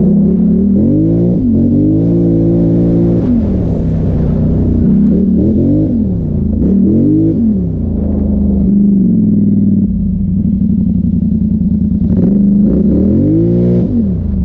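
2017 Polaris Sportsman XP 1000 ATV's twin-cylinder engine, revving up and dropping back again and again as the throttle is worked over rough trail, holding a steadier pitch for a few seconds about two-thirds of the way through before rising again near the end.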